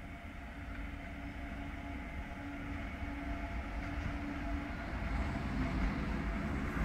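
Freight locomotive hauling a train of tank wagons approaching and passing, its rumble growing steadily louder, with a steady hum from the locomotive.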